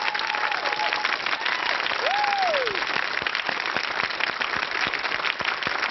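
Studio audience applauding after a live electric cello performance, with one rising-and-falling whoop from the crowd about two seconds in.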